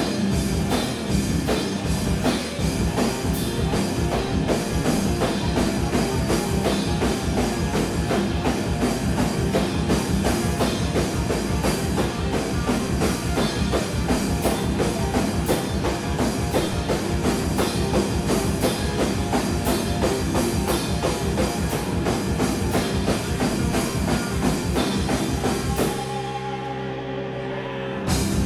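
Rock band playing live: electric guitar, drum kit and keyboard synth, recorded from the back of a small room. About two seconds before the end the drums drop out, leaving held guitar and synth notes, then the full band comes back in.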